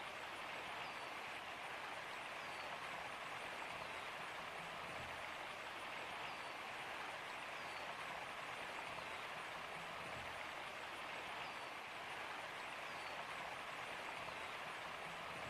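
Waterfall in a winter forest: a steady rush of falling water, with faint short high chirps every couple of seconds.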